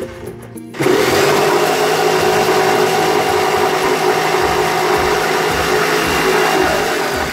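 Black & Decker electric jigsaw switched on about a second in and running steadily as it cuts through a wooden poplar dowel, stopping just before the end.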